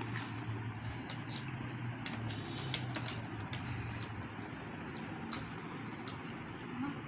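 Faint low hum with scattered light clicks and taps from eating panipuri: spoons against steel bowls and hands cracking open the crisp puri shells. The sharpest clicks come about two and three-quarter seconds and five and a half seconds in.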